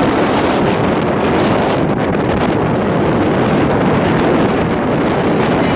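Wind buffeting the microphone: a loud, steady noise, heaviest in the low range.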